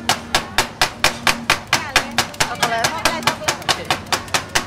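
Rapid, even chopping, about four sharp metal strikes a second: steel spatulas hitting a cold plate as rolled ice cream is chopped on the pan.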